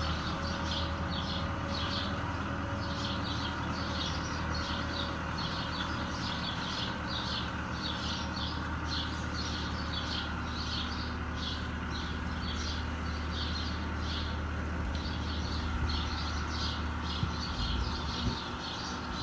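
Fiat 766 DT tractor's diesel engine running steadily while it drives its O.S.M.A. arm mower, a constant low drone. Over it, a high chirping repeats two or three times a second.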